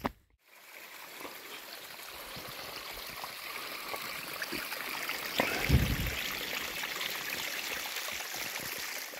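A small stream of running water, a steady rushing trickle that begins about half a second in, with one low thump a little past halfway.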